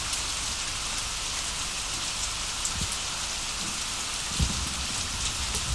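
Steady hiss of rain, with a few soft low thumps.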